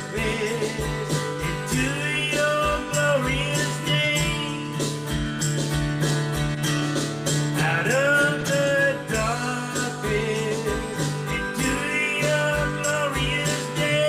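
Country-style worship song: a voice singing over strummed acoustic guitar, a bass line and a steady beat.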